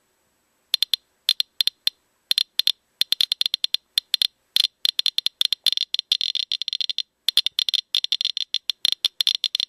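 Geiger counter clicking, sparse single clicks at first that come faster and faster until they run together into a rapid crackle: the count rate climbing.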